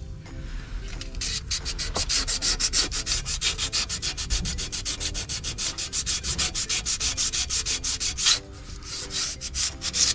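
Sandpaper rubbed by hand over the friction face of a 2007 Ford Focus flywheel in quick back-and-forth strokes, several a second, scuffing the still-sound surface before a new clutch is fitted. The strokes start about a second in and pause briefly near the end.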